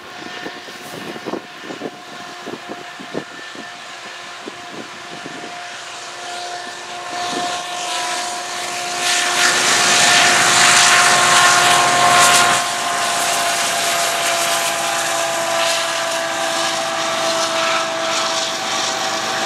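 Two CN diesel locomotives hauling a double-stack container train approach and grow louder, with a steady whine over the engine noise. They are loudest as they pass about nine to twelve seconds in, then the sound drops suddenly to the steady rumble and rolling of the container well cars going by.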